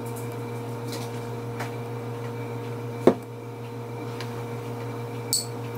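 Steady low electrical hum, with a few faint clicks of a metal spoon scooping pasta sauce from a glass jar onto scallop shells, and one sharp tap about three seconds in.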